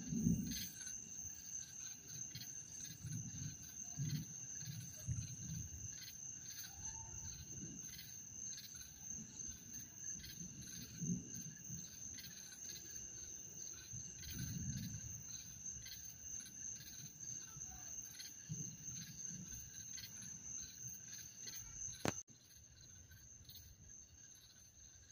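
Crickets chirping in a steady night chorus: one high, even trill with a pulsing chirp over it. Low rumbles rise and fade every few seconds. Near the end a click comes and the chorus carries on more quietly.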